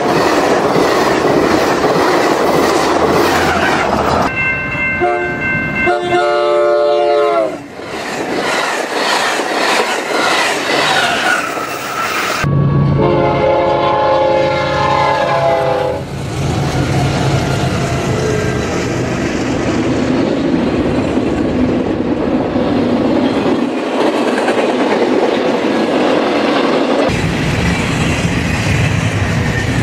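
A run of diesel train recordings. First, double-deck passenger cars rush past with a steady rush of wheel noise, and the train's multi-note horn sounds twice a few seconds in. Near the middle a BNSF freight locomotive's horn sounds a chord for about three seconds, followed by the steady rumble of diesel locomotives and rolling cars.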